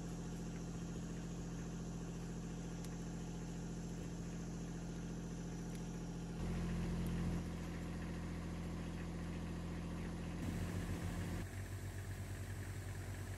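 Farm machinery engine idling steadily, with a low, even hum. Near the end a tractor engine idles with a faint regular pulse.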